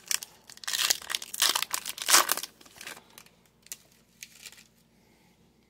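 A shiny foil trading-card pack wrapper being torn open and crinkled, in a run of crackly bursts over about three seconds, loudest about a second in and again just after two seconds. A few faint clicks follow as the cards are handled.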